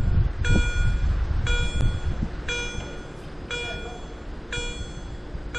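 Level-crossing warning bell (EHL-S10 electronic signaller) striking about once a second, each stroke ringing briefly with several tones, signalling that the crossing is closing and the barriers are coming down. A low rumbling noise underneath is strongest in the first two or three seconds.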